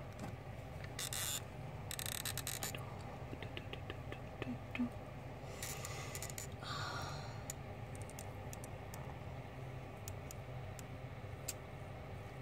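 Short scraping and rubbing sounds from a hand handling a clear plastic tarantula enclosure, several in the first seven seconds, followed by scattered light clicks, over a steady low hum.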